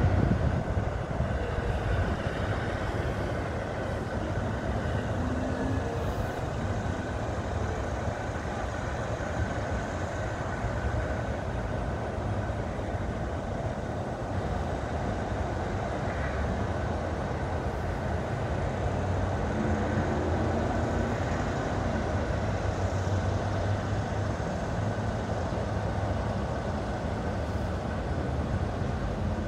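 Steady highway traffic noise: cars and trucks passing at speed, a continuous hum of tyres and engines.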